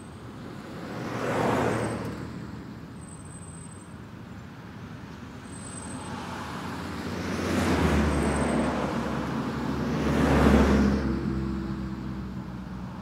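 City street traffic with vehicles driving past one after another. There are three louder pass-bys, about a second and a half in, around eight seconds and around ten and a half seconds, over a low engine rumble.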